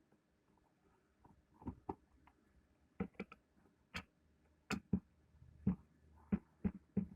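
Irregular sharp clicks and knocks, about a dozen over several seconds, of a power drill and tools being handled and set down on a work surface.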